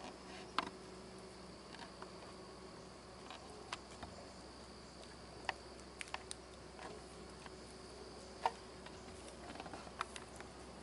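Water dripping from the trees after rain: scattered sharp ticks at irregular intervals over quiet woods, with a faint steady high hum.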